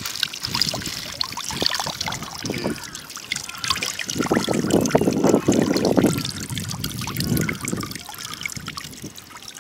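Water trickling and dripping from a leaking plastic bag of live fish into the water just below it, a steady splattering patter that grows louder around the middle.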